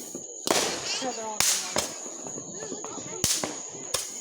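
Consumer fireworks going off: about five sharp bangs and pops spread over a few seconds, the loudest about half a second and a second and a half in.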